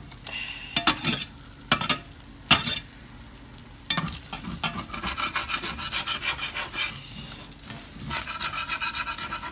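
Spatula scraping and knocking against a frying pan as a folded omelet is pressed down, over the sizzle of frying egg. A few sharp scrapes come in the first three seconds, then quick rhythmic scraping from about four seconds in.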